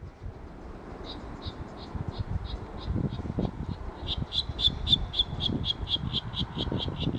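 Virginia rail calling: a series of short, sharp notes that begins slowly about a second in and speeds up to about six a second, over low, rough, irregular sounds in the marsh.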